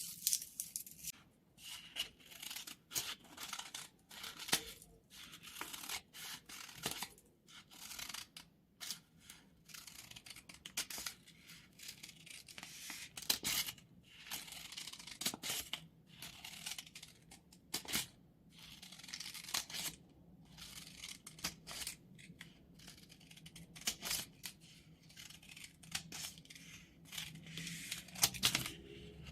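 New scissors sliding through sheets of paper in single long cuts: a steady run of crisp, hissing slices, one after another with short pauses between.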